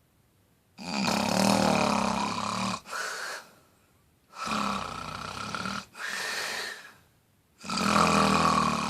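Snoring: three snores, each a longer loud breath followed by a shorter, softer one, with brief quiet pauses between them.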